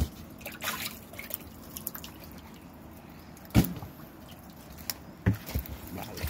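Scattered splashes and drips of water as live tilapia flap in a shallow tub and a hand reaches in among them, the loudest splash a little past halfway through.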